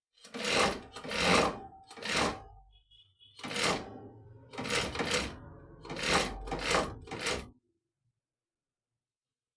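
Sun Special straight-stitch industrial sewing machine with edge trimmer running in six short bursts, each a second or less, with a low motor hum between them. It stops about three-quarters of the way through.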